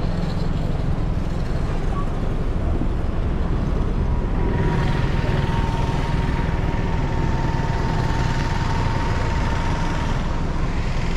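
Steady low rumble of motor vehicle and road noise, with no distinct events. A faint steady whine sits over it for several seconds in the middle.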